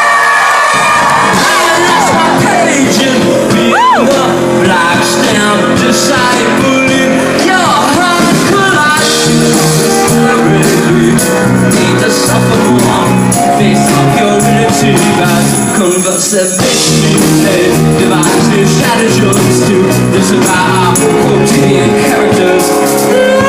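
Live rock band playing loudly, with drums and pitched instruments throughout and a brief slight dip in the music about 16 seconds in.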